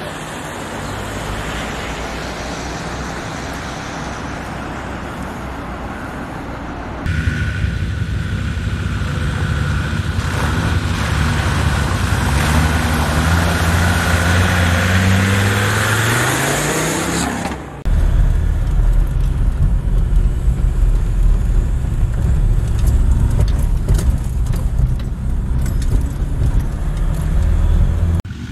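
Land Rover Discovery Td5's five-cylinder turbodiesel engine running hard under load, in pieces that change abruptly; around the middle it revs up with rising pitch while the tyres splash through water, and from about two-thirds in it runs deeper and louder.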